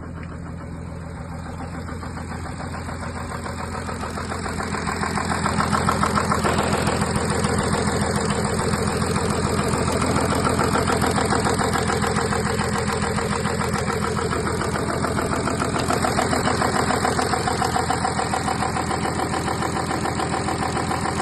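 Audi A6 3.0 TDI V6 diesel engine idling with an even, rapid clatter. It grows louder over the first few seconds, then holds steady.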